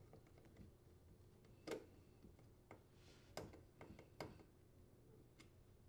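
Faint scattered clicks of a nut driver working the screws of a metal strain relief on a dishwasher's electrical terminal box, about four small ticks a second or so apart, as the screws are tightened on the power cord.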